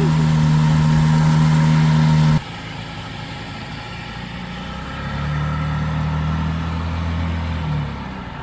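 A motor engine runs at a steady, loud hum and cuts off abruptly about two and a half seconds in. A fainter steady engine hum follows, from about five seconds to nearly eight.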